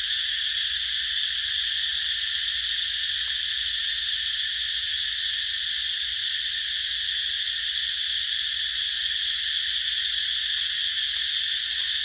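Cicadas calling in a dense chorus: a steady, unbroken high-pitched buzzing drone that does not rise or fall.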